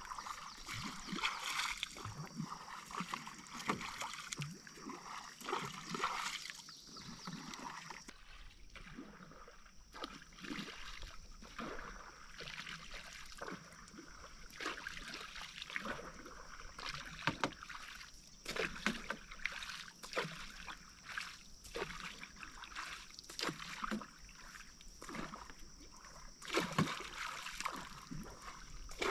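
Paddle strokes dipping and splashing in still lake water as a bamboo raft is paddled along, in an irregular run of strokes that comes thick at first and spreads out after the first several seconds.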